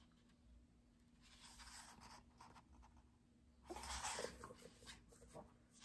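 Near silence with faint rustling of paper as the pages of a hardcover book are turned and handled, a louder stretch of rustling about two-thirds of the way through as the open book is lifted.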